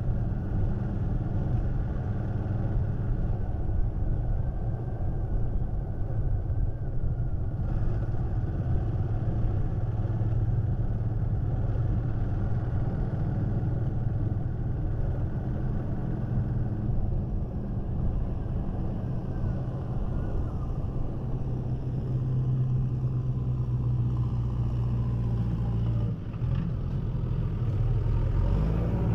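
Motorcycle engine running steadily at riding speed, with road and wind noise. Near the end it eases off briefly, then picks up again.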